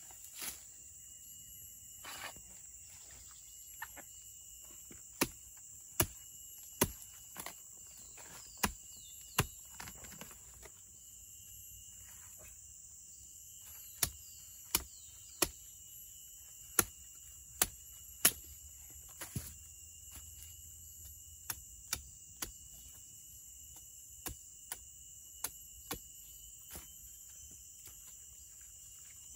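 Sharp knocks of wood being struck, coming in runs with the blows often under a second apart, as a tool is worked into a rotting sago palm trunk. Under them runs a steady, high-pitched drone of jungle insects.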